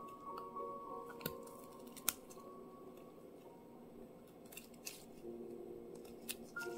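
A knife blade cutting into chestnut shells while peeling chestnuts: a few sharp, separate clicks, over soft background music.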